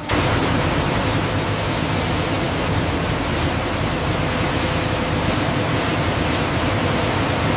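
A steady rushing noise, even and unbroken, that starts abruptly and then holds at one level.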